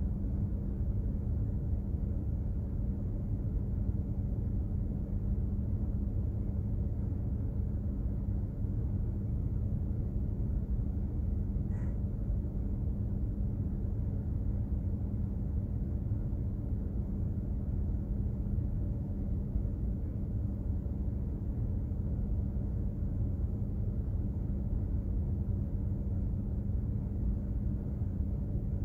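Steady low rumble of a container ship's machinery under way at sea, with a constant hum running through it. A faint tick sounds about twelve seconds in.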